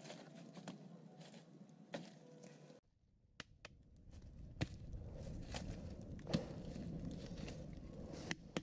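Wood and bamboo campfire crackling, with sharp irregular pops over a low steady rush of flame. The sound drops out abruptly about three seconds in and comes back louder.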